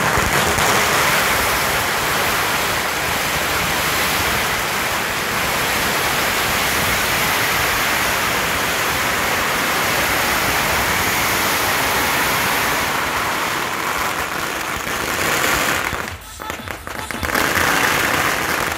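A long string of red firecrackers burning through in a dense, continuous crackle of rapid bangs. It breaks off for about a second near the end, then gives one last short burst.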